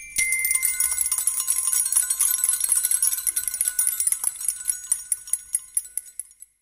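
Small jingle bells (grelots) shaken rapidly in a dense, shimmering tinkle that thins out and fades away over about six seconds.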